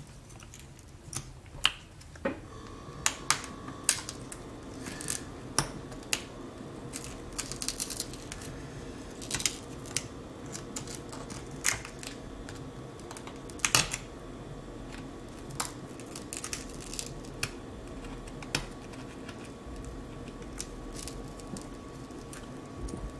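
Irregular clicks and crackles as a thin pry tool is worked along the glued edge of a cracked iPad 6 glass digitizer to free it from its strong adhesive.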